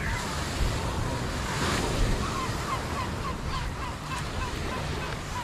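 Small waves washing on a sandy beach, with wind buffeting the microphone. About two seconds in, a run of short high chirps repeats roughly three times a second for a couple of seconds.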